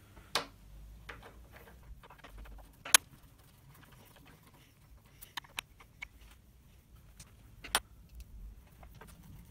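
Light metallic clicks and clinks as small steel cranked flush hinges and a screwdriver are handled and set against a laminated board. The sharpest click comes about three seconds in and another near the end.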